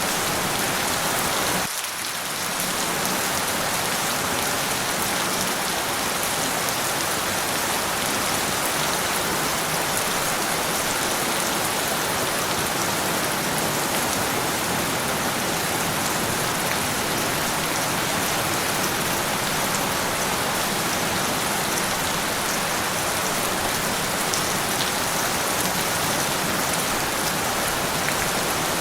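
Rain falling steadily: an even, dense hiss of drops on a surface, with a brief dip in level about two seconds in.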